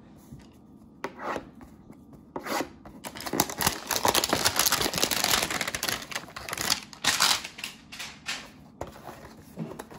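Packaging of a trading-card hanger box rustling, scraping and tearing as it is opened. A few short scrapes come first, then a dense, louder rustle in the middle seconds.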